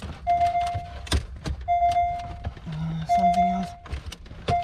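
Porsche Panamera's electronic warning chime beeping over and over, one half-second tone about every second and a half, four times. Sharp clicks and knocks of plastic console trim being handled come between the beeps.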